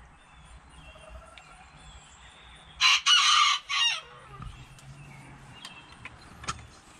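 A bantam rooster crowing once, about three seconds in: one loud crow of about a second that falls off at the end.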